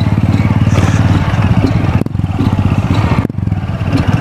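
Motorcycle engine running with a rapid steady low pulse, with two short breaks about two and three seconds in.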